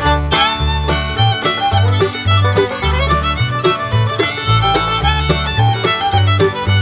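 Upbeat instrumental background music: a fiddle-led, bluegrass-style tune over a bouncing bass line that changes note about twice a second.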